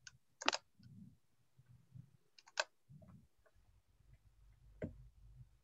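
A few faint, sharp clicks scattered over low rumbling noise, picked up by the open microphones of a video call.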